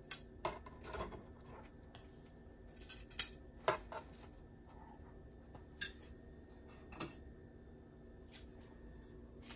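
Metal tongs clicking and tapping against the non-stick plates of an electric sandwich maker as toasted sandwiches are lifted out. The clicks and knocks come singly and in pairs, with quiet gaps between them, over a faint steady hum.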